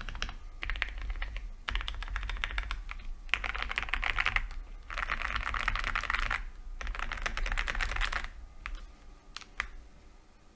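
Typing on an Owlab Jelly Epoch mechanical keyboard with lubed and filmed Gateron Ink Black V2 linear switches and Akko ASA-profile keycaps. Five quick bursts of keystrokes with short pauses between them are followed near the end by a few single key presses.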